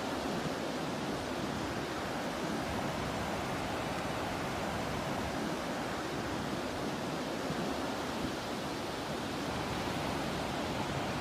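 Steady, even rush of ocean surf and sea breeze, with no distinct wave crashes or bird calls standing out.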